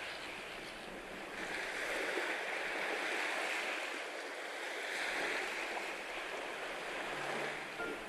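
Sea waves washing on the shore, the surf swelling and easing in slow surges.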